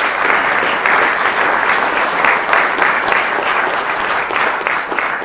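An audience applauding, beginning to fade near the end.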